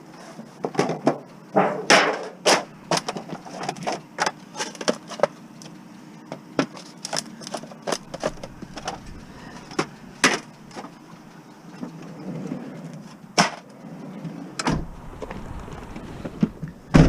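Irregular clattering knocks and bangs of a piece of aluminum siding being handled and loaded as scrap. A low rumble comes in near the end.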